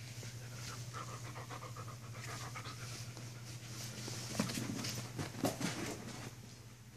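Black wolfdog puppy panting fast during rough play, with a couple of sharper, louder sounds about four and a half and five and a half seconds in.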